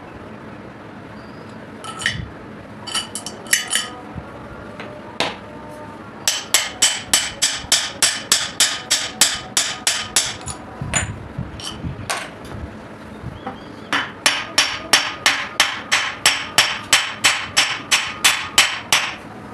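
Hammer blows on metal while a 6202 ball bearing is driven off or onto a washing machine motor's shaft: a few scattered taps, then two long runs of quick, even, ringing strikes at about four a second.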